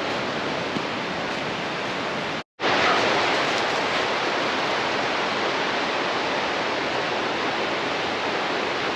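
Fast-flowing water of the River Dart, a steady rush, cut off for a moment about two and a half seconds in.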